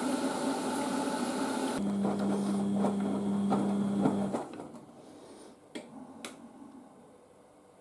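Beko WM6143S front-loading washing machine running its wash cycle, with a steady hum from about two seconds in. The running stops suddenly about four and a half seconds in, leaving it much quieter with a couple of light clicks.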